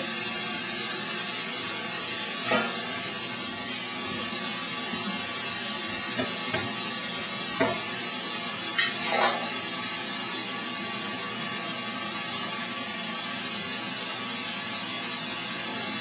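Steady rushing hiss of a charcoal-fired iron bloomery furnace under air blast, with a handful of short metallic clinks and scrapes from an iron bar working the top of the furnace, most of them in the first ten seconds.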